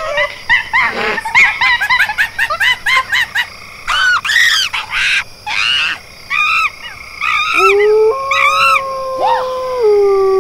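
High-pitched cartoon voice sounds dubbed over the fight: a quick run of short yelps, about four or five a second, then scattered cries, and a long held yell that steps up and then back down in pitch near the end.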